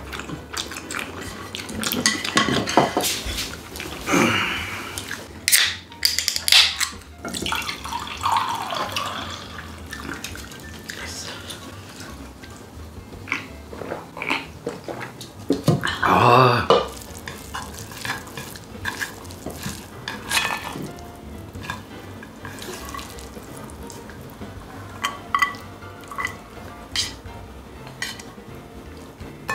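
Drinking at a dinner table: a drink is poured and gulped, amid the clinks of chopsticks, spoons and bowls.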